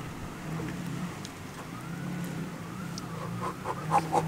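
A distant siren wailing, slowly rising and falling in pitch, over a steady low hum. A few short clicks come near the end.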